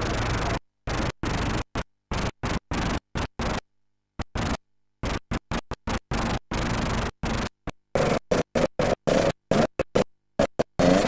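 Electronic background music chopped into rapid stop-start stutters with scratch-like effects. The first part is mostly a hiss-like noise, and a higher pitched line comes in about eight seconds in.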